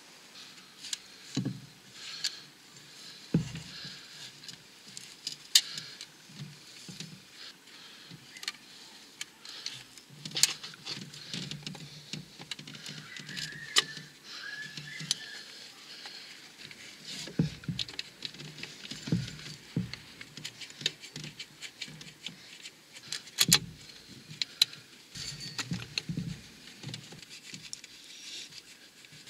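Irregular metallic clicks, taps and knocks as a new coolant pump for a Renault 1.5 dCi engine and its bolts are handled and fitted against the engine block by gloved hands, with a brief scrape of metal on metal about halfway through.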